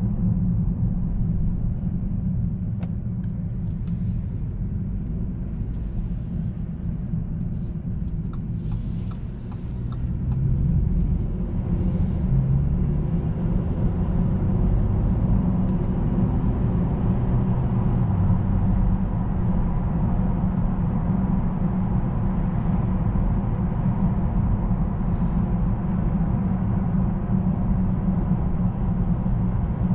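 Engine and road noise of a 2019 Bentley Continental GT heard from inside the cabin while driving: a steady low drone that dips about nine seconds in, then rises in pitch and loudness as the car picks up speed again.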